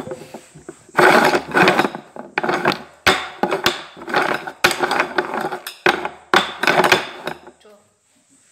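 Upturned bowls being slid and shuffled around on a tabletop by hand: a quick run of scraping strokes with sharp knocks, which stops about a second before the end.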